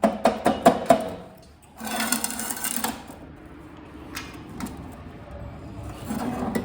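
Metal parts being handled: a quick run of sharp knocks and clatter in the first second, then about a second of scraping rustle, followed by a few lighter clicks.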